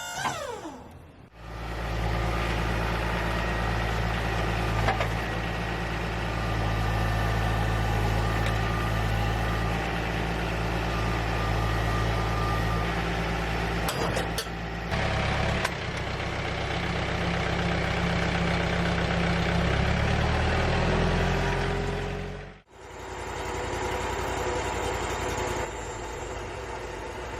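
A large engine running steadily with a deep, even hum, its pitch wavering a little about twenty seconds in. It cuts off abruptly and a quieter steady engine sound takes over.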